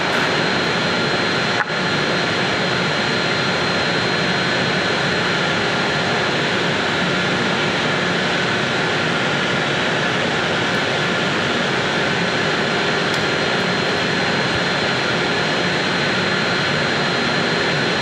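A fan or blower running steadily: an even, continuous whooshing noise with a faint high whine held throughout.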